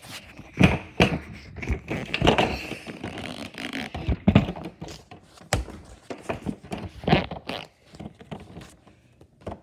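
Irregular thuds, knocks and scrapes of handling as a puzzle box is picked up and opened, with several sharp knocks spread through.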